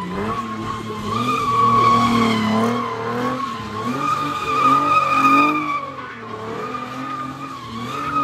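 Nissan Z sports car doing donuts: its tyres squeal steadily in a long high-pitched screech while the engine revs rise and fall with the throttle.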